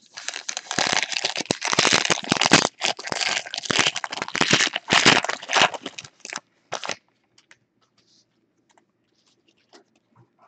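Foil trading-card pack being torn open and crinkled in the hands: a dense crackle of the foil that stops about seven seconds in. A few faint light ticks follow as the cards come out.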